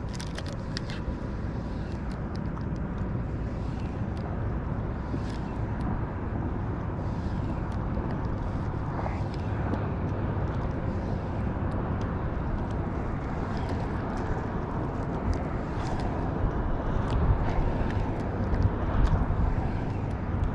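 Wind buffeting an action camera's microphone: a steady low rumble that grows gustier and louder over the last few seconds, with a faint thin whine and scattered light clicks.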